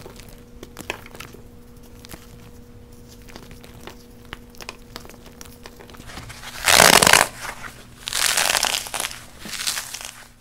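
Baked floral foam coated in a powdery paste being crushed by hand: light crackling and small crunches at first, then a loud crunch about seven seconds in, followed by two more crunching bursts as the block breaks apart.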